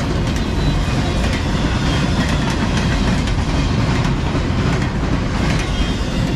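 Freight train's empty intermodal well cars rolling past with a steady rumble, their steel wheels clicking over the rail joints.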